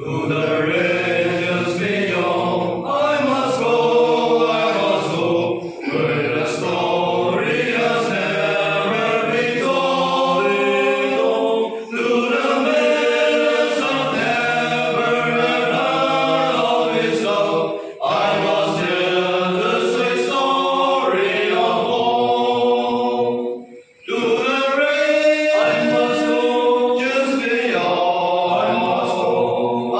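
A group of men singing a hymn together, unaccompanied, in long phrases with a short pause about every six seconds.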